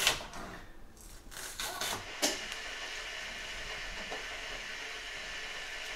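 A few knife chops on a wooden chopping board, then from about two seconds in a steady hiss.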